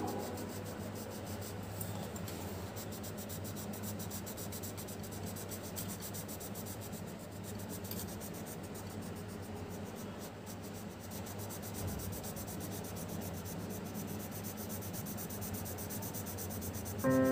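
Pencil scratching and rubbing on paper as a drawing is sketched, faint and steady. Music comes in abruptly right at the end.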